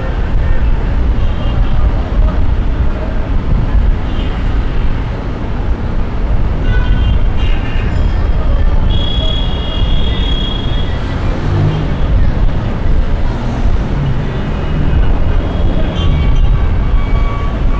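City street traffic noise with a steady rumble of passing vehicles. A horn sounds for about two seconds near the middle.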